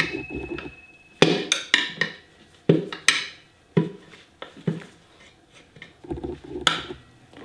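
Steel tire levers clanking against a scooter's alloy wheel rim as they are worked under the tire bead: a string of about eight sharp, irregular metallic clanks, one near the start ringing on briefly.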